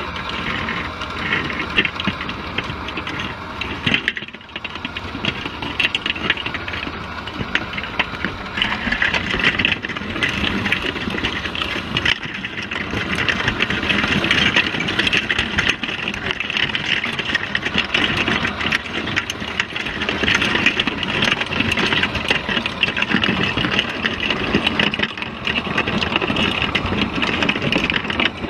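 Underwater sound inside a crab trap: a steady engine-like drone carried through the water, overlaid with dense clicking and scraping as crabs crawl over the camera housing and the wire mesh. It grows louder about halfway through, as the crabs crowd right against the camera.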